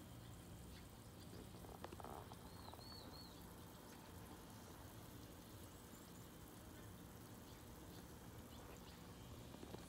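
Near silence: faint background noise with a low steady hum and a few soft clicks, and a brief faint high chirp of three quick notes about two and a half seconds in.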